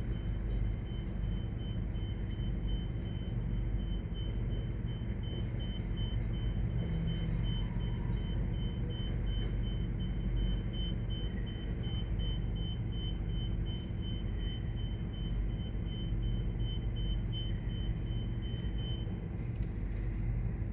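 Steady low vehicle-engine rumble with a rapid, evenly repeating high-pitched electronic beep that stops near the end.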